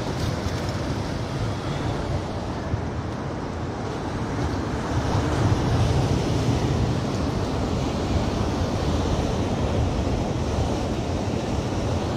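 Surf washing steadily onto a rocky boulder beach, with wind buffeting the microphone.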